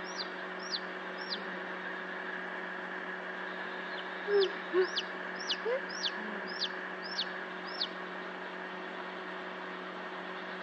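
Newly hatched chicken chick peeping: short, high calls that each fall in pitch, four in quick succession, then a pause and seven more, with two lower, louder sounds about four seconds in. A steady hum runs underneath.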